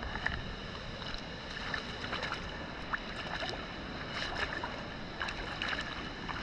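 Running river water, with short splashes and light clicks as a fish measuring mat is dipped and moved about in the shallows to wet it.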